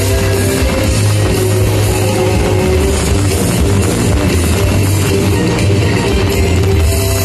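Loud rock music with electric guitar and drums, playing without a break.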